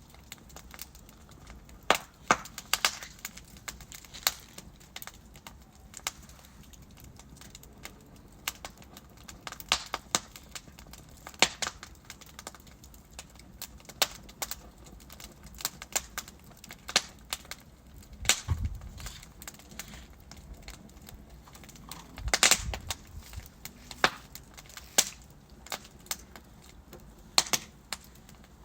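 Logs burning in a fireplace, crackling with irregular sharp pops and snaps over a low steady hiss. The popping comes in two louder, fuller bursts about two-thirds of the way in and again a few seconds later.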